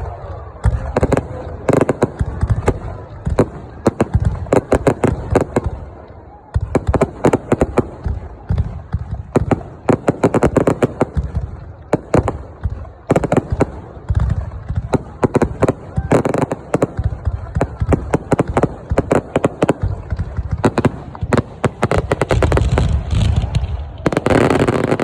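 Aerial fireworks going off in rapid, crackling volleys of bangs, with brief lulls and a dense, loud barrage near the end.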